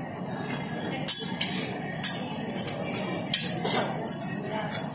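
Metal spatulas clinking and scraping on a steel teppan griddle as okonomiyaki are turned and pressed: a run of irregular sharp clinks over a steady restaurant din.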